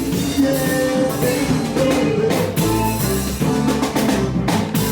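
Music with a drum kit playing, its hits sounding over bass and other pitched instruments.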